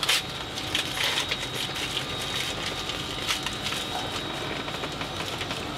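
Soft rustling and small clicks of hands handling a patient and medical equipment, over a faint steady high-pitched tone.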